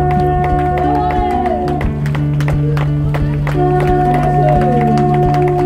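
Music: long held notes over a steady low drone, with a few notes sliding down in pitch.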